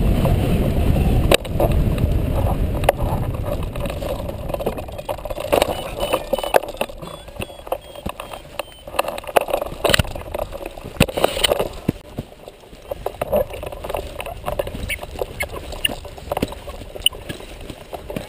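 Wind rushing over the glider-mounted camera's microphone as the hang glider skims low over the grass, cutting off suddenly about a second and a half in as it slows. After that come irregular knocks and rustles as the glider comes to a stop on the field.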